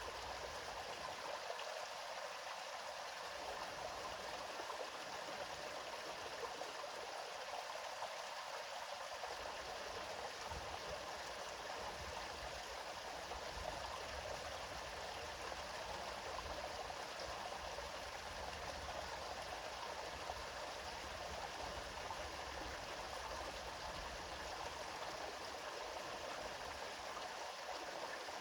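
River water flowing and splashing over stones, a steady rushing babble.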